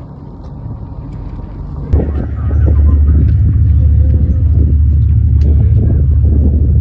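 A tugboat's horn sounding one long, deep blast that starts abruptly about two seconds in and holds steady at a loud level, over wind on the microphone.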